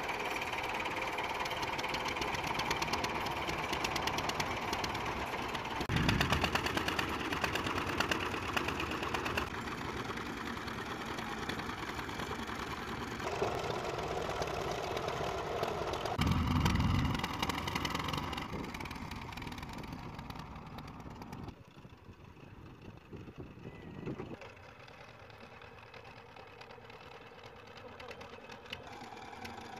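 Farm tractor's diesel engine running, heard across several cut-together clips. It grows louder with a deep rumble about six seconds in and again around sixteen to eighteen seconds, and is fainter in the last third.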